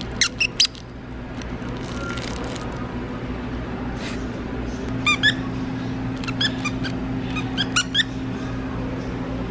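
Squeakers inside plush dog toys squeezed by hand: three quick squeaks right at the start, then after a pause of about four seconds, several more short squeaks in twos and threes. A steady low hum runs underneath.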